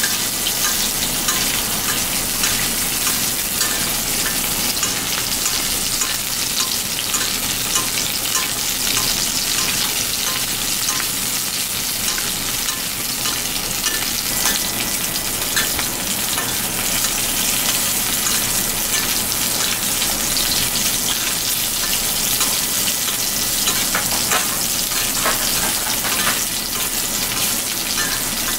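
Oil sizzling steadily in a black metal frying pan as coiled pieces of fish fry, with a metal spoon now and then clinking and scraping against the pan as the cook bastes them.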